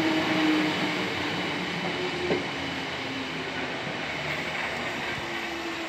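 South Western Railway Class 455 electric multiple unit moving away along the platform: a steady hum of motors and wheels on rail with a few held tones, slowly fading as it leaves. A single short knock about two seconds in.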